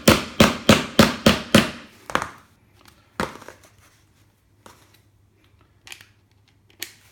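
Hammer tapping a wheel bearing into a balance bike's rear wheel hub: a quick run of about seven sharp taps in the first two seconds, one more about three seconds in, then only light knocks.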